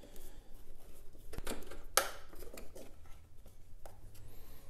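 A screwdriver loosening the screw on a lawn mower engine's plastic air filter cover, then the cover being opened and the filter taken out. Scattered clicks and plastic rattles, with two sharper clicks about a second and a half and two seconds in.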